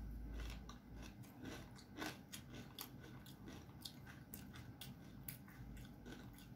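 Faint close-up eating sounds: a person chewing, with small sharp clicks and smacks of the mouth scattered through.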